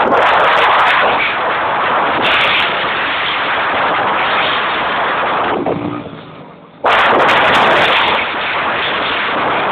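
Wind buffeting the microphone of a fast-moving vehicle on the road: a loud, dense rush that fades away for about a second past the middle and then returns suddenly.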